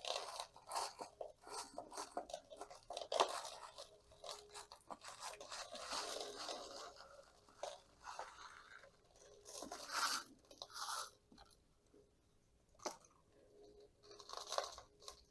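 Potting soil crunching and rustling as a cutting's root ball is worked out of its container and the soil is dumped out. Irregular gritty crunches, scrapes and clicks, with a quieter stretch about two-thirds of the way through.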